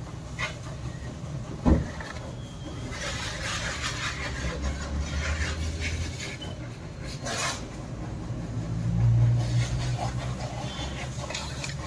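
A motor vehicle's engine running, growing louder about halfway through and again later, with a sharp knock about two seconds in.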